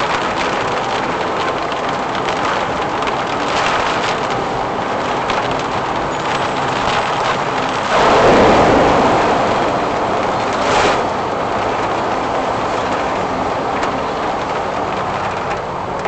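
Daihatsu Mira Cocoa driving through heavy typhoon rain on a flooded road: a steady rush of tyres on standing water and rain. About halfway through, a loud surge of water splashing up over the car as it ploughs through deep water, fading over a couple of seconds, then a short thump.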